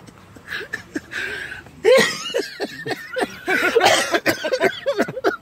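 A man coughing and clearing his throat in bouts: a loud burst about two seconds in and another around four seconds.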